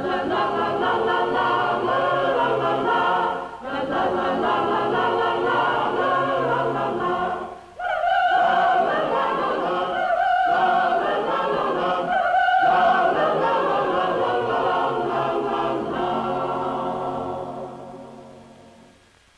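A choir of voices singing a slow song in phrases, with short pauses between them. From about eight seconds in, long held notes stand out above the choir, and the singing fades away near the end.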